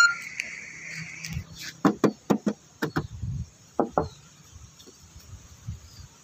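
A series of short, sharp clicks, some in quick pairs, through the middle stretch. Under the start is a faint steady hum that fades out after about two seconds.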